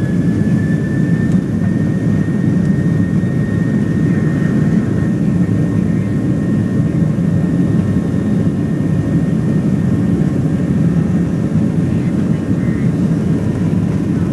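Airliner jet engines running at takeoff power: a loud, steady rumble with a thin high whine that rises slightly at the start and fades away after a few seconds.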